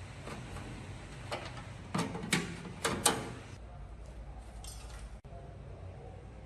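Hard parts being handled during work on an old microwave: several sharp clicks and knocks, bunched between about one and three seconds in, over a low steady hum.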